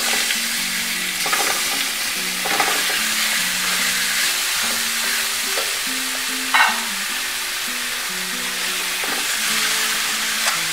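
Raw chicken pieces sizzling in hot oil with ginger-garlic paste in a large metal pot, being stirred with a silicone spatula. A steady sizzle runs throughout, with a few clacks of the spatula against the pot; the loudest comes about two-thirds through.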